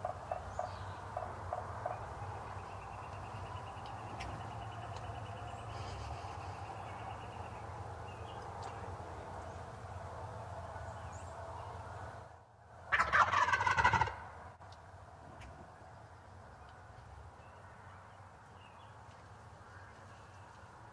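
Wild turkey tom gobbling once, loud and close, about two-thirds of the way through: a rapid, descending rattle lasting about a second and a half. Softer quick pulsed calls are heard near the start.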